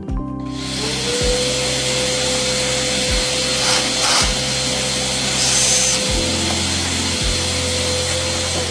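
Small electric vacuum cleaner running, its motor whine spinning up in the first second and holding steady, clearing the chips out of a freshly tapped hole in aluminium. Background music with a steady beat plays under it.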